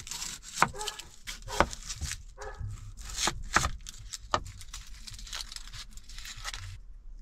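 Kitchen knife cutting an onion on a plastic chopping board: several sharp knocks of the blade on the board and a few short squeaks in the first half, then the crackle of dry onion skin being peeled off by hand.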